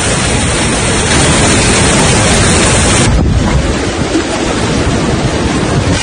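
Loud, steady rushing of floodwater torrenting through a street, with wind buffeting the microphone. About halfway through, the rush changes character and loses some of its hiss.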